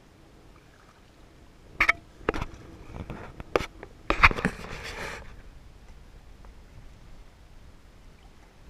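A burst of sharp knocks and clicks with rustling close to the microphone, lasting about three seconds from two seconds in: a dog in a life jacket shifting about and brushing against the camera in a kayak.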